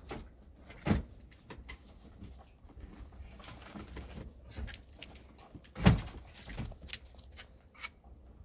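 Clunks, clicks and knocks of hands and tools working in an SUV's open engine bay while a battery is fitted, with two louder thumps about a second in and near six seconds. No engine running.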